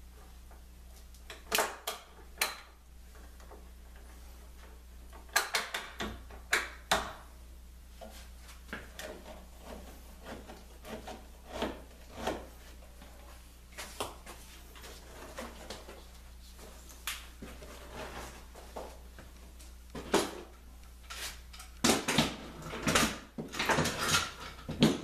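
Scattered clicks and knocks of bar clamps being handled and tightened, metal clamp heads and wood knocking, as glued baltic birch plywood strips are clamped into a ring, over a low steady hum. The knocks come closer together near the end.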